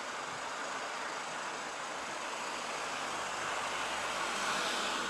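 Jet airliner's twin engines at takeoff thrust during the takeoff roll, heard from behind: a steady rushing noise that swells slightly in the second half.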